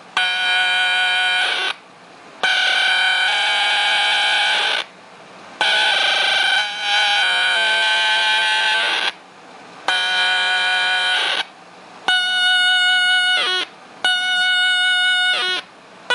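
A small Casio keyboard played through a circuit-bent 'Crunchbox' filter/distortion box, giving a crunched-up, buzzy tone. It plays held notes and chords in blocks of one to three seconds with short silent gaps between them. Near the end, two notes slide down in pitch as they fade.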